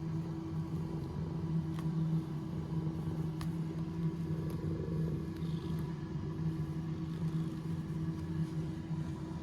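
Steady low mechanical hum over a low rumble, with a faint higher tone above it and a couple of faint ticks about two and three and a half seconds in.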